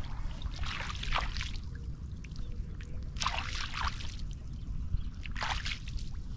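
Shallow muddy floodwater splashing and sloshing in three short bursts, as boots wade and gloved hands reach through the water and sodden plants.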